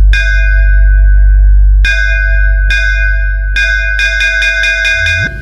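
Electronic DJ bass-test music: a deep, sustained sub-bass under a bell-like synth tone that strikes a few times, then in a quick run of about six hits near the end.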